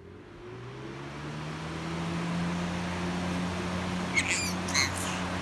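Electric box fan coming up to speed: its motor hum rises in pitch and loudness over the first two seconds, then holds steady with a rush of air. Near the end a baby gives two short, high squeals.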